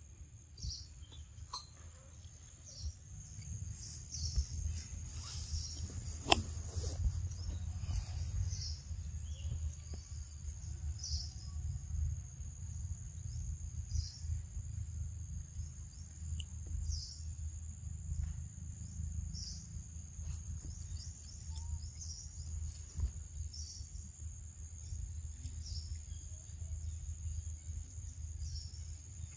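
Steady high-pitched insect chorus, with short chirps repeating about once a second, over a low rumble. One sharp click about six seconds in.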